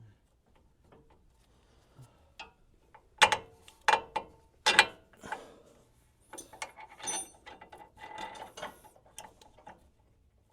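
Three sharp metallic knocks about three to five seconds in, then a hand ratchet clicking rapidly while the sway bar hardware is tightened.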